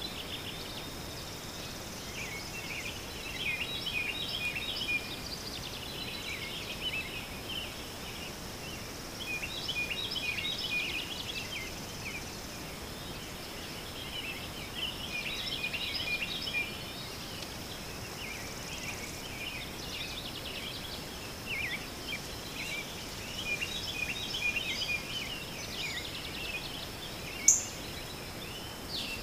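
Outdoor ambience of birds chirping in bursts every few seconds over a steady, high-pitched insect drone, with one sharp click near the end.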